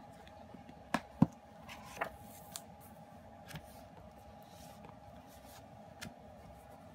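Hands handling a CD album's cardboard case and photobook: a few sharp taps and clicks of card and paper, the loudest about a second in, over a faint steady hum.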